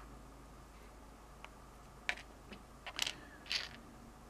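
Small clicks and scrapes from carbon-fibre frame parts and a tiny screw being handled: a sharp click at the start, a light tick about a second and a half in, then a few short clicks and scrapes a little after two seconds and again around three seconds and three and a half seconds.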